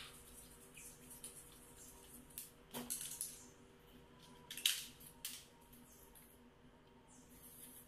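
Small handling sounds as thread-seal tape is pulled from its roll and wrapped onto a shower-mixer connector: a few short clicks and rustles of tape and metal parts, the sharpest about two-thirds of the way through.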